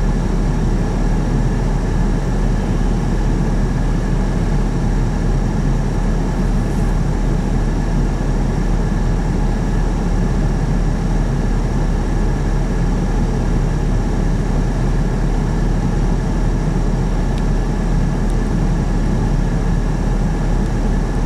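Freight train's loaded centerbeam lumber cars rolling steadily past a grade crossing, a continuous low rumble heard from inside a car's cabin.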